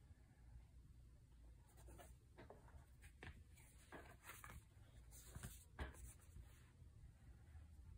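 Faint scraping and rubbing of a cardboard game board being folded shut by hand, with a few short sharp clicks and taps between about two and six seconds in.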